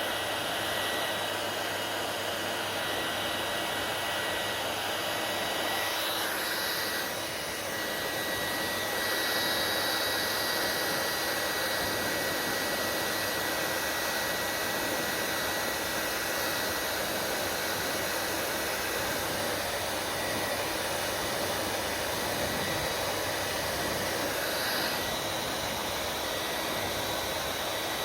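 Hair dryer running steadily: a constant rush of blown air with a thin, high steady whine from its motor and fan. The sound dips briefly about seven seconds in, then comes back slightly louder.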